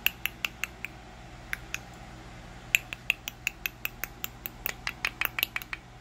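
Indian ringneck parakeet making a series of sharp clicks: a few in the first second, then a quick run of about four to five a second from about the middle almost to the end.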